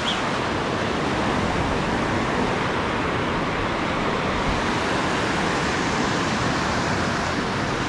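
Steady rush of surf: small waves breaking and foamy water washing through the shallows.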